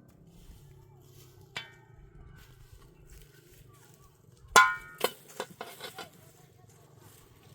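Metal cookware clanking: a ringing clank, then about three seconds later a louder ringing clank followed by several quick lighter clinks.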